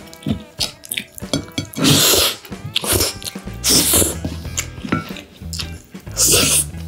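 Close-miked eating: a wooden spoon scraping kimchi fried rice off a ceramic plate, and loud slurping bites and chewing, with several sharp hissy intakes of breath into the spoon.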